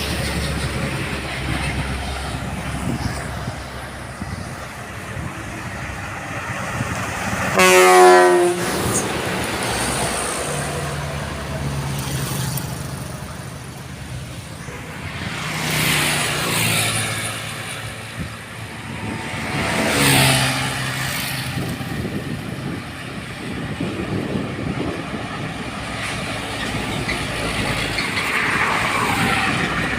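Roadside traffic with one loud bus horn blast, about a second long, near the start of the second quarter. Two more vehicles pass later, each swelling and fading.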